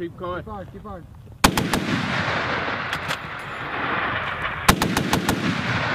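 About a second and a half in, a sustained burst of rapid automatic cannon fire starts, with sharp cracks standing out at intervals: an AH-1Z Viper's M197 20mm three-barrel Gatling cannon firing on the gunnery range.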